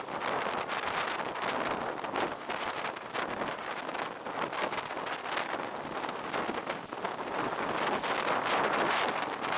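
Blizzard wind gusting over the microphone, a steady rushing noise that swells and eases, strongest about eight to nine seconds in.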